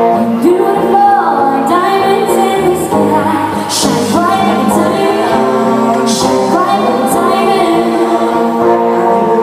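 A woman singing a pop song into a microphone, accompanied by guitar.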